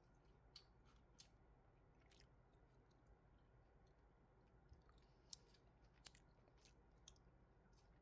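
Near silence with quiet eating sounds: about eight faint, sharp clicks of metal chopsticks and a spoon against ceramic dishes, scattered a second or so apart.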